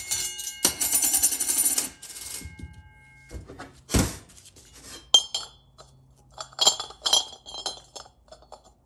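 Metal transmission parts being handled: the sun shell scrapes and rings with a few held tones in the first two seconds, a sharp knock comes near four seconds, then a run of light metallic clinks as the sun gear is fitted into the shell.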